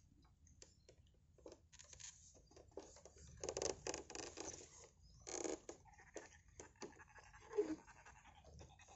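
Faint scraping and rustling of a long-handled scoop net being worked in shallow floodwater, with two short splashes as the net dips in to take a fish off a traditional lift net. A brief squeak sounds near the end.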